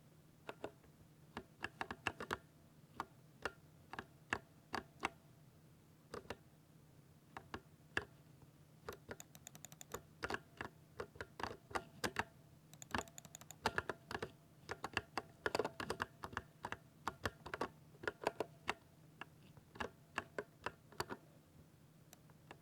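Typing on a mechanical keyboard with Speed Silver switches: irregular runs of quick key clicks, some fast flurries and short pauses, over a faint steady low hum. The typing stops about a second before the end.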